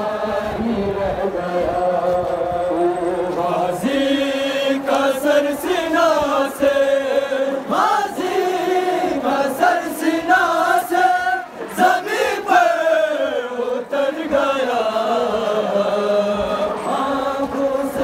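Voices chanting a noha, a Shia mourning lament, together in a drawn-out, wavering melody.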